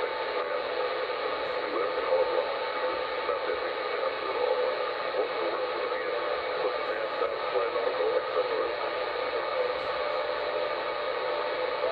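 CB radio receiver tuned to channel 38 (27.385 MHz), putting out steady static from its speaker while listening for distant skip signals.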